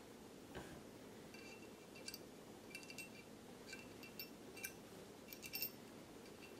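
Faint, scattered light metallic clicks and clinks from handling a Browning Hi-Power pistol's steel parts while fitting its sear lever spring.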